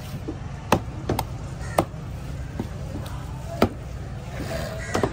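Heavy curved knife chopping through bluefin tuna onto a wooden cutting block: a series of sharp knocks at uneven intervals, over a steady low hum.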